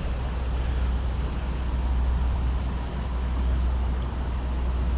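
Steady, even rush of water pouring through a spillway, heavy in the low end.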